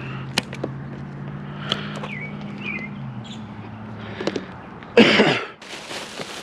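A person coughs once, loudly, about five seconds in, bothered by pollen, followed by a short breathy hiss. Before it, a few light knocks of scrap being handled sound over a steady low hum that stops about three seconds in.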